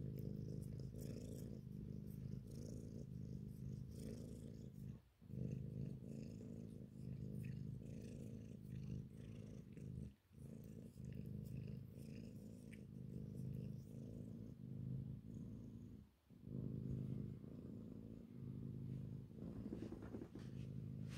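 Domestic cat purring steadily up close while being stroked, the purr breaking off briefly three times.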